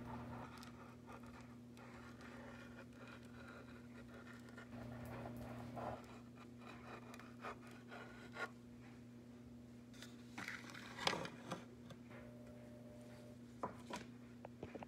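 Faint rubbing and scraping of hands working a piping bag of icing, with a few soft knocks, the loudest about eleven seconds in, over a steady low electrical hum.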